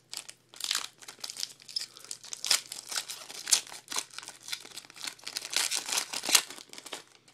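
Foil wrapper of a Bowman Platinum baseball card pack being torn open and crinkled by hand: a run of irregular crackling rustles that stops just before the end.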